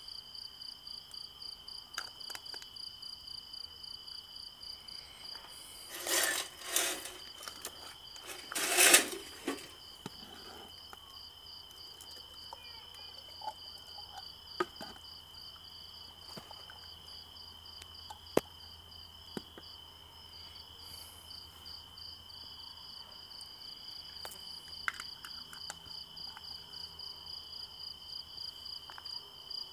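Crickets chirping steadily in fast, even pulses, with a few loud scraping rubs about six to nine seconds in and a few sharp clicks later.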